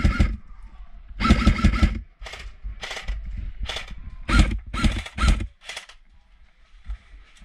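Airsoft electric rifle (AEG) firing full-auto, its motor and gearbox whirring through each burst: a burst about a second in, then a string of short quick bursts, stopping near six seconds.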